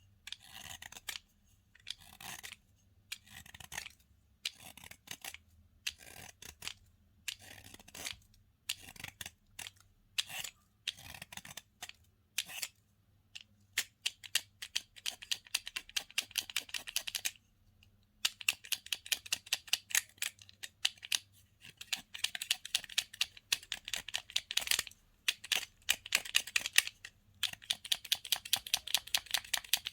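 Slime being worked by hand, making sticky clicks and crackling pops: separate squishes about once a second at first, then from about halfway on long runs of rapid clicking with a short pause.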